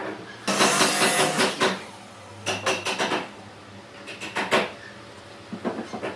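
Workshop knocks and clatter: a loud noisy burst lasting about a second, then three short clusters of sharp knocks and clicks.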